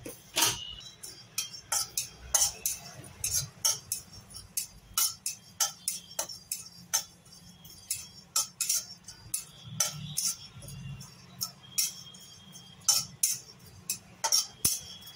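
Flat metal spatula scraping and clinking against a dry metal kadai as cumin seeds are stirred while they dry-roast. The clinks and scrapes come irregularly, a few a second.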